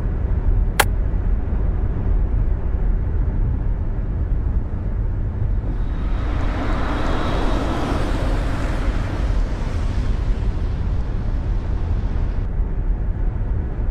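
Steady low road rumble of a car heard from inside the cabin. There is a single sharp click about a second in. Around the middle a rushing hiss swells up and then stops near the end.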